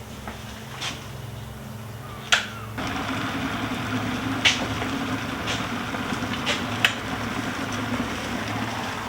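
A few kitchen clicks and a sharp knock, then water running steadily from a tap, with several sharp clinks over it.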